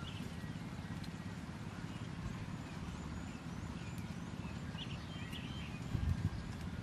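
Outdoor ambience: a steady low rumble, with a few short high chirps and faint clicks.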